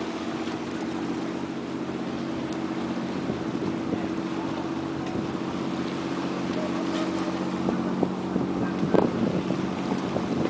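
A boat's motor running steadily at an even low pitch, with wind on the microphone. A few short knocks come near the end.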